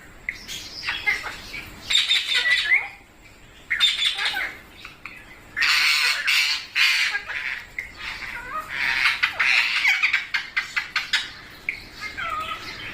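Green ringneck parrot squawking in repeated calls separated by short gaps, with the longest loud run about six to seven seconds in.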